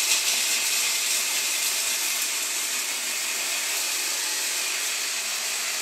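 Hand blender with a chopper attachment running at a steady speed, chopping toasted hazelnuts; an even, high whirr without a break.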